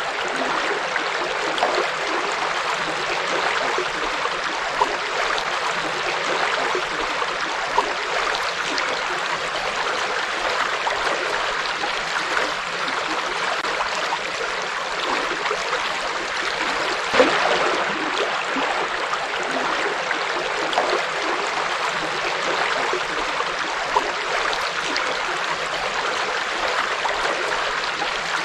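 Forest river flowing over stones: a steady rushing and babbling, dotted with small splashes and one slightly louder splash about two-thirds of the way through.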